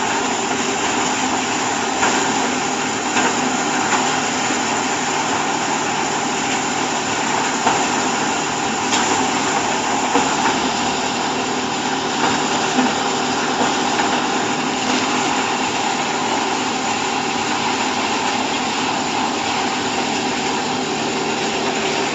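Chopped-hay bagging baler running steadily: a constant machine hum and rush, with a few light knocks here and there.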